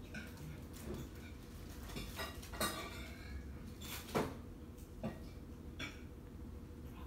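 A cat eating dry kibble off a tiled floor: irregular crisp crunches and clicks of the hard pellets, the loudest a little after four seconds in.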